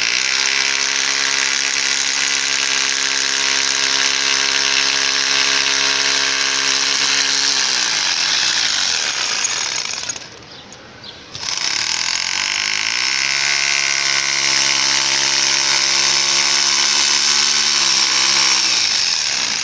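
Corded rotary hammer drill boring into a brick wall, its hammering chatter and motor whine running in two long bursts with a short pause about ten seconds in. The motor's whine sinks in pitch shortly before the pause and climbs back up after the restart.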